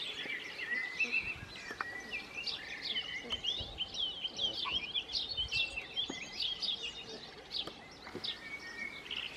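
A brood of goslings peeping: many short, high peeps that rise and fall, coming thick and fast.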